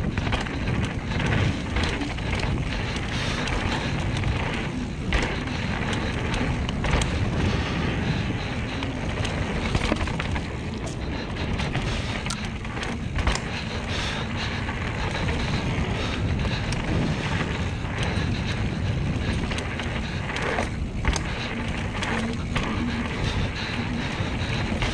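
Mountain bike riding fast down a dirt singletrack: a steady rush of tyre roll on packed dirt and wind on the camera microphone, with occasional clicks and rattles from the bike.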